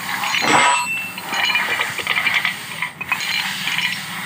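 Quick runs of metallic clicking and clinking from hand tools working on the crankshaft and connecting-rod cap bolts of a Maruti Suzuki Eeco engine, after a brief rush of noise about half a second in.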